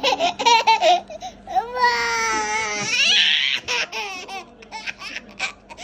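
Baby laughing and squealing: a quick run of laughs, then one long high-pitched squeal lasting over a second, then more short laughing bursts.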